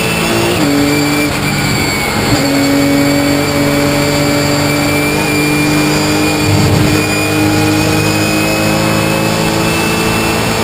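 Porsche 997 GT3 Cup's flat-six race engine under full throttle, heard from inside the stripped cockpit. It shifts up twice in the first couple of seconds, then pulls with a slowly rising note.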